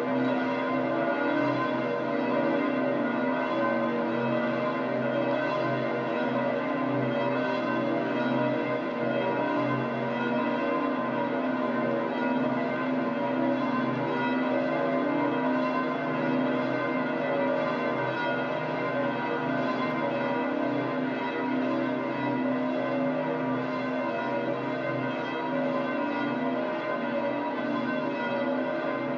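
Church bells of St. Peter's Basilica pealing, many bells ringing together and overlapping without a break.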